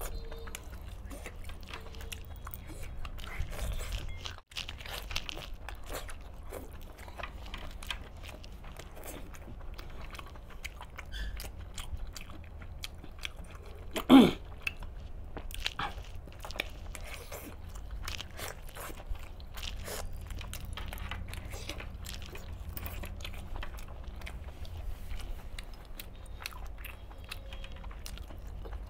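A man biting and chewing chicken leg pieces in green masala gravy, with many small mouth clicks and chewing sounds, and one short louder sound from the man about halfway through.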